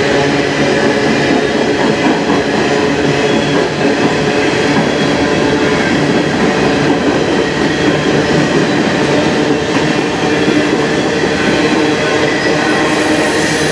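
Covered hopper cars of a long potash freight train rolling past. The steady rumble and rattle of steel wheels on rail is loud and unbroken, with faint steady high tones over it.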